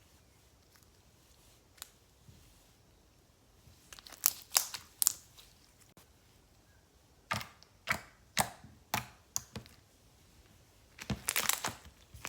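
Slime being squeezed and poked by hand, giving quick sticky crackling clicks in three short spells, with quiet between them.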